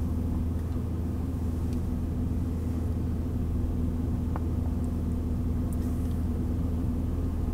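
Car engine idling while the car stands still, heard from inside the cabin as a steady low rumble.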